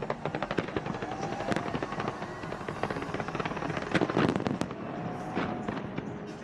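Fireworks going off in quick succession: a dense, rapid crackle of small bursts with several louder, sharper bangs standing out, the strongest about four seconds in.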